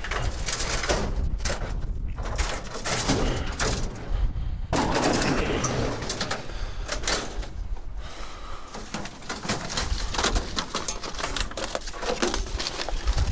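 Irregular knocking, clattering and scraping of scrap metal being handled and shifted, with a longer, louder scrape about five seconds in.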